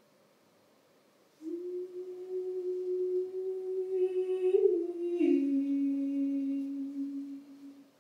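A single voice humming long held notes: one note starts about a second and a half in, holds steady, then steps down twice to a lower note that fades out just before the end.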